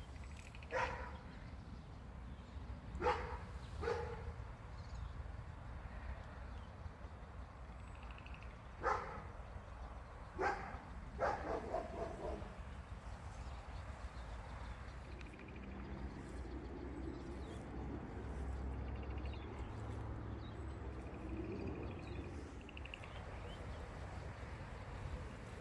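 A dog barking: about six short barks in the first half, singly and in pairs, over a steady low rumble.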